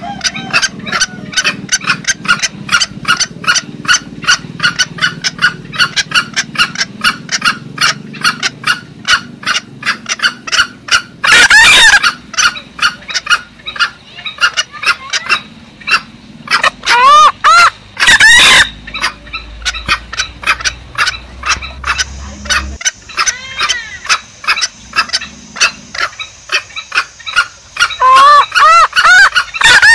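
Green junglefowl calls played as a hunting lure: a fast run of short clucking calls throughout. Louder, drawn-out calls break in about a third of the way through, twice around two-thirds of the way, and again near the end.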